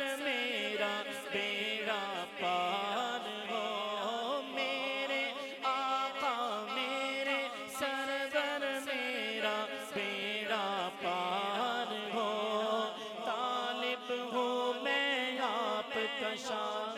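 A man singing a naat, an Urdu devotional song in praise of the Prophet Muhammad, with long ornamented melodic runs. A steady low drone sits beneath the voice.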